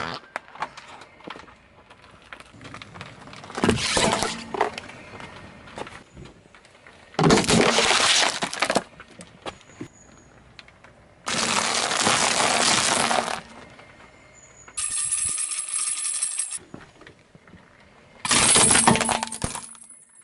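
A car tyre rolling slowly over small objects and crushing them, giving about five separate crunching, cracking crushes with short pauses between. One of them is brittle waffle ice-cream cones breaking up under the tyre. The crush about 15 s in carries a steady high-pitched tone along with the crunching.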